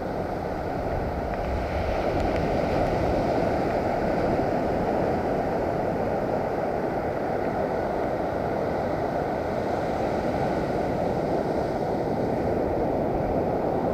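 Steady wash of breaking surf on a sandy beach, with wind noise on the microphone.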